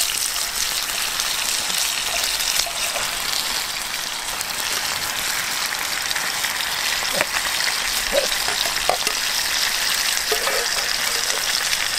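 Bulgogi (Korean marinated beef) and rolled rice cakes sizzling as they fry: a steady hiss, with a few short clicks about two-thirds of the way through.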